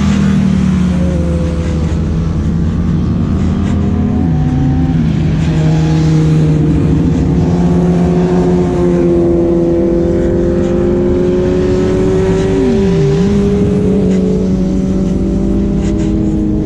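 Motorcycle engine running under way at road speed, heard from the bike itself, with a steady rumble beneath it. The engine note drops and stays lower about four seconds in, then dips briefly and climbs back around thirteen seconds.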